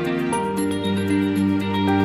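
Soft background music: sustained melodic notes over a steady low tone, with a light regular tick.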